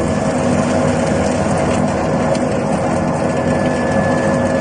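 Motor-driven screw oil expeller running steadily while pressing peanuts: a continuous mechanical hum with several steady tones.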